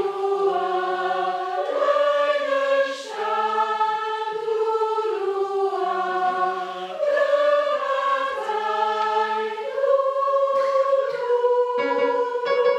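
Choir singing unaccompanied, holding slow sustained chords that change every second or two. Near the end a strummed guitar chord comes in.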